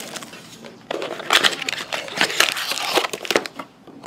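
Clear plastic wrapping crinkling and crackling, with light knocks, as sealed trading-card packs are taken out of their box and handled. The crinkling starts about a second in and dies down shortly before the end.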